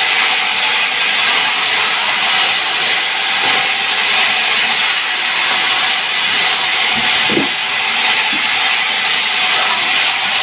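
Sawmill saw running through a sengon log: a loud, steady, hissing cutting noise, with a couple of brief low knocks about seven seconds in.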